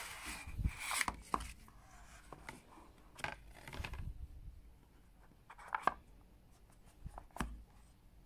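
Cardboard packaging being handled: a paper sleeve slid off a small card box and the box lid lifted open, with rubbing and scraping of card and scattered taps and clicks, the loudest about a second in and near the end.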